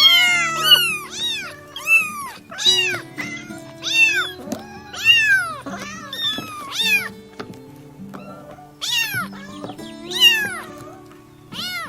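Several young kittens meowing over and over, high thin meows that each rise and fall in pitch, some overlapping, with a pause of a second or so about two-thirds of the way through. Soft background music plays under them.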